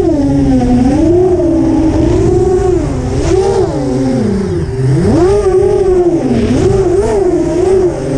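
Brushless motors and propellers of an ImpulseRC Alien 6-inch FPV racing quadcopter, heard from its onboard camera. The whine rises and falls constantly with the throttle, dips low about four and a half seconds in, then climbs sharply, over a rumble of wind on the microphone.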